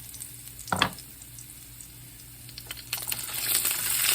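A single utensil knock against the pan about a second in, then frying sizzle swelling up loudly near the end as chicken goes into the hot oil.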